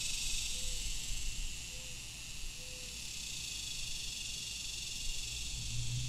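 A chorus of cicadas droning as one steady, high, hiss-like buzz, over a low rumble of road traffic. Three short faint notes sound in the first three seconds.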